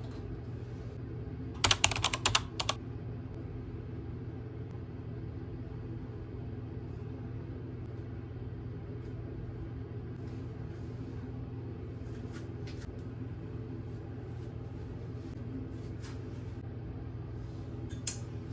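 A quick run of sharp clicks, like typing or tapping, about two seconds in, then a steady low hum with a few faint ticks.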